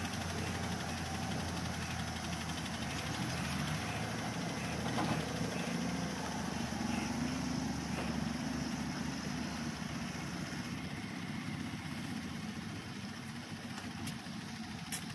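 Diesel engine of a Halla 130 wheeled excavator running steadily while it digs.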